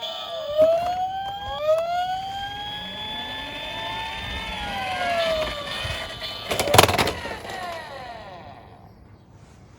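Toy emergency-vehicle sirens wailing, several overlapping rising and falling glides. A loud clatter of toy cars knocking comes about two-thirds of the way through, and the sirens fade out near the end.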